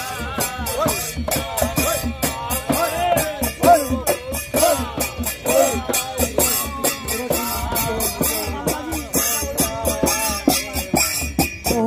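Folk procession music: men singing together over a dhol and hand drums and a rattling shaker, in a quick steady beat.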